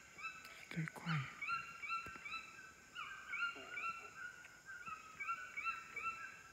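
White-throated toucans yelping: a continuous run of short, clear calls, several overlapping at a few per second, with a brief low falling sound about a second in.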